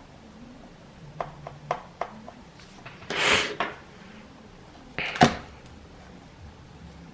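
Small clicks and taps of tools and parts being handled during iPad reassembly, a short rustle about three seconds in, and a louder sharp knock just after five seconds.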